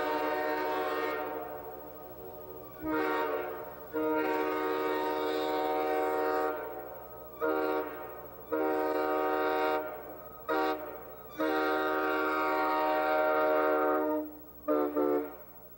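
A Canadian-tuned Nathan K5H five-chime train air horn blown as a string of blasts. The first sounds as it opens and dies away about a second in. Several more follow, from long holds of two to three seconds to short toots, ending with two quick toots.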